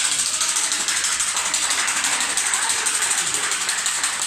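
A hand-swung ratchet noisemaker (matraca) rattled without a break: a fast, even clatter of clicks.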